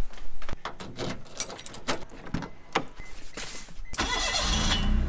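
A string of clicks and knocks from footsteps and keys, then about four seconds in a Toyota Duet's engine is started with the key, catches and runs steadily.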